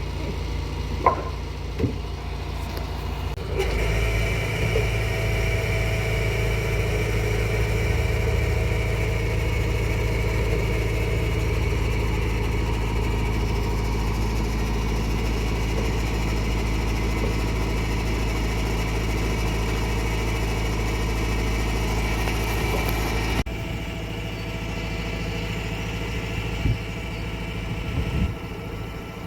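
Engine of a boat-lifting machine running steadily as it lifts a narrowboat on straps. It picks up and gets louder about four seconds in, then drops back to a lower run about six seconds before the end, with a couple of short knocks near the end.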